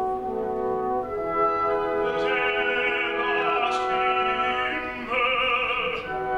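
Live operatic tenor singing with a wide vibrato over an orchestra. The orchestra holds chords at first, and the voice comes in about two seconds in.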